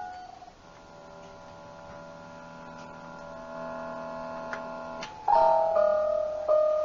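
Circuit-bent Casio SK-8 sampling keyboard holding a chord of steady electronic tones that swells slowly, with a few faint clicks. About five seconds in, louder notes come in: one note struck again several times beneath a higher held tone.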